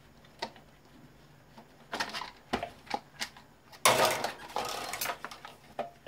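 Fan parts being handled and knocked together during disassembly: scattered clicks and knocks, then a louder rattling clatter about four seconds in that lasts about a second.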